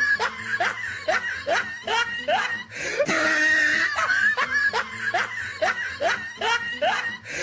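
A laughing sound effect: a string of short rising laugh syllables, and the same laugh clip starts over about three seconds in.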